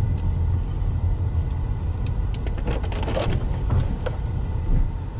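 Inside a slowly moving car, the engine and tyres make a steady low rumble. A few short clicks and rattles come about halfway through.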